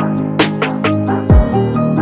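Background music with plucked guitar over a steady beat, with a low bass drop about a second and a half in.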